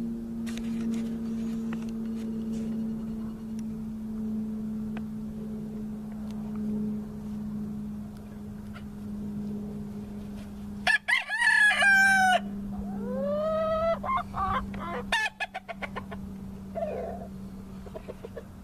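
Game fowl rooster crowing loudly about eleven seconds in, followed by further rising and falling crowing calls. A steady low hum runs underneath most of the time.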